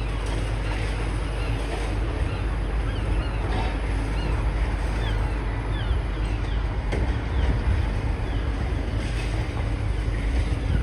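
Wind buffeting the microphone over a steady low rumble, with a run of short, high, falling bird chirps in the middle.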